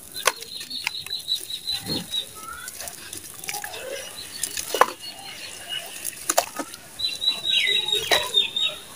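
A soaked sandy cement block crumbled by hand into a tub of muddy water: gritty crumbling with sharp plops and splashes as wet chunks fall in, then hands squelching in the mud. A high chirping runs in the background near the start and again near the end.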